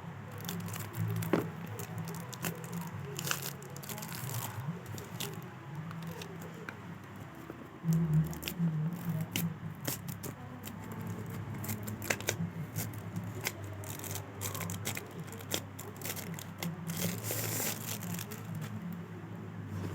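Packaging handled during a phone unboxing: plastic and paper crinkling and tearing, with many sharp clicks and taps.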